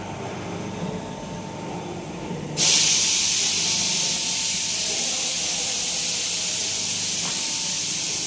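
Low steady machinery hum, then a loud steady hiss starts suddenly about two and a half seconds in and keeps going.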